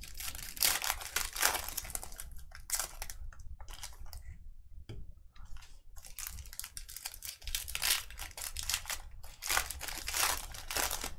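Plastic wrapping crinkling and tearing in irregular bursts as sealed trading card boxes and packs are torn open.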